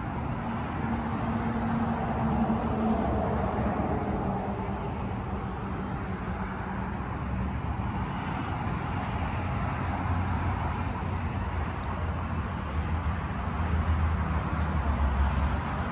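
Steady road traffic from a highway: a continuous rumble and hiss of passing cars, a little louder near the end.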